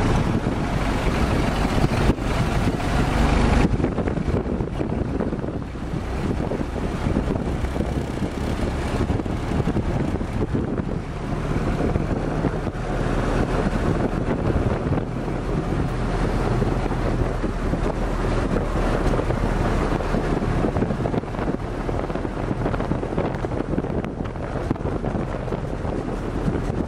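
WWII Jeep driving along a road, its engine running steadily under heavy wind buffeting on the microphone. The high hiss thins out about four seconds in.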